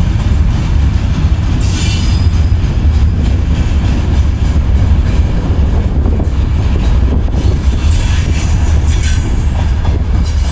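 Freight train's open gondola wagons rolling past on the rails: a steady heavy rumble with wheel-on-rail clatter. Brief high wheel squeals come about two seconds in and again around eight to nine seconds.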